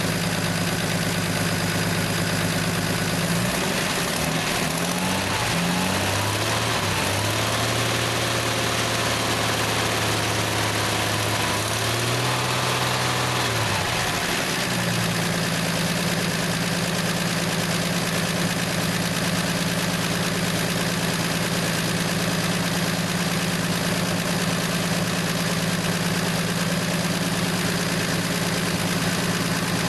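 1968 Plymouth Valiant's slant-six engine idling, its pitch wavering up and down for roughly ten seconds starting a few seconds in, then settling back to a steady idle.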